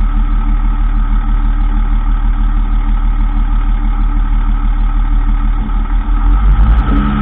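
2003 Dodge Ram 2500 running steadily: a low engine hum with a steady high whine over it, the noise the owner puts down to the transfer case in 4x4. About six seconds in, the sound turns uneven and new lower tones come in.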